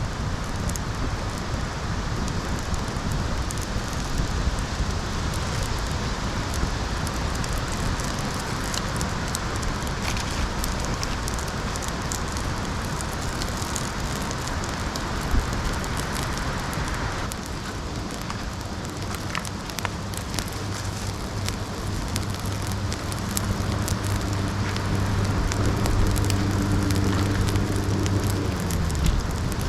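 Wood fire crackling and popping, with many sharp little snaps over a steady hiss. In the second half a steady low hum joins in and stops shortly before the end.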